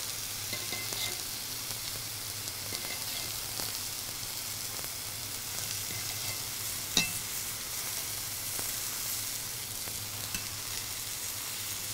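Cubed Wagyu steak sizzling steadily on a hot flat-top griddle, with faint clicks of a knife and carving fork against the griddle and one sharper tap about seven seconds in. A low steady hum runs underneath.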